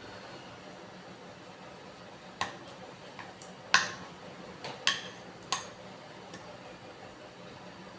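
Utensil clinking against a bowl during eating: about five sharp clicks between two and six seconds in, the second the loudest, over a faint steady hiss.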